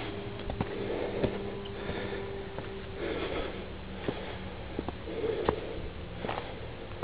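A person breathing hard while walking, one loud breath about every two seconds, with footsteps clicking and scuffing on loose stones and dry leaves.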